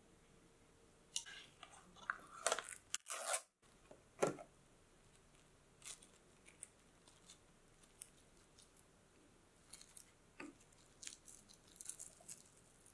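Plastic cling film being pulled out and torn off, then crinkling as it is pressed down over a glass dish: a dense run of sharp crackles in the first few seconds, then scattered lighter crinkles.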